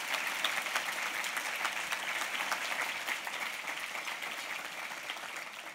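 Audience applauding, many people clapping at once, fading away near the end.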